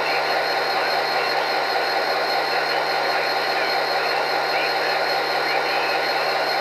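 Sound decoder of an HO-scale Athearn Genesis GP39-2 model locomotive playing a steady diesel idle through its small onboard speaker: an even hum with a hiss over it.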